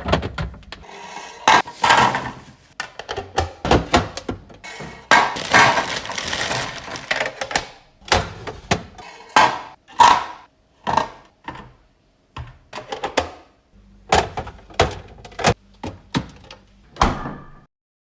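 Items being handled and set down during a restock, giving a run of sharp knocks and clicks, with a stretch of rustling and crinkling packaging a few seconds in. The sounds stop abruptly near the end.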